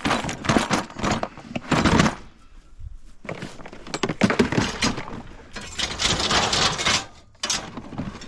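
Scrap metal clattering as pieces are tossed and dropped, in two long bursts of clanks and rattles with a short pause between them.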